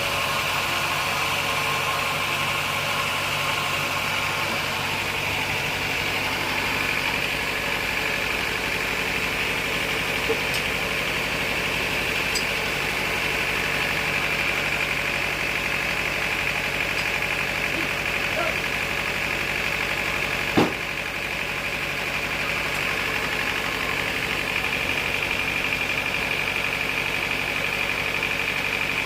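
Sawmill machinery running steadily, a constant mechanical drone with a high whine. A single sharp knock comes about two-thirds of the way through.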